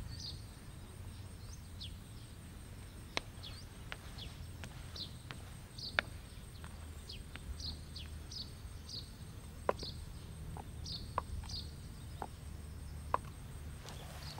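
Faint ambience of small birds chirping, short high chirps repeated every second or so over a low steady hum, with a few sharp clicks mixed in.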